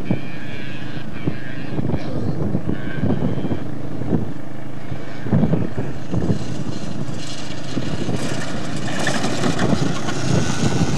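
Alfa Romeo Alfasud's flat-four engine revving as the car is driven hard on a loose sandy dirt track, with a rushing hiss growing louder in the second half.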